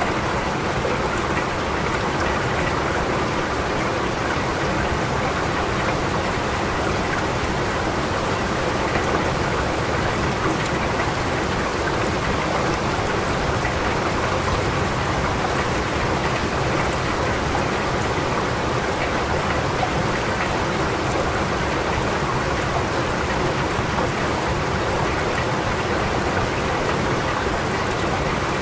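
Steady rain falling, an even, unbroken hiss of drops that holds at the same level throughout.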